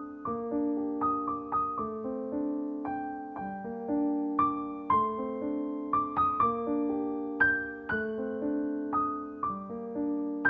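Slow, gentle piano music, single notes and chords struck every half second or so and left to ring out.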